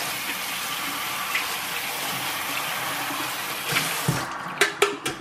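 Kitchen tap running steadily into a stainless-steel sink, shut off about four seconds in, followed by a few sharp clinks and knocks.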